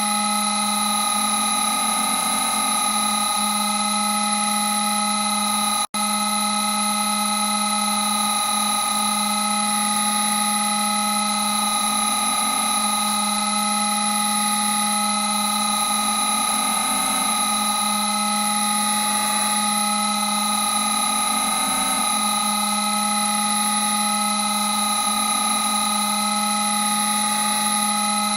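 A creepy synthesized glow drone: a steady low hum layered with several higher held whining tones that waver slowly. It cuts out for an instant about six seconds in.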